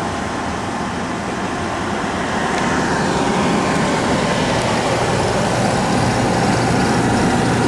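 Oil-fired furnace running: a steady burner-and-blower rush over a low hum, growing a little louder about three seconds in.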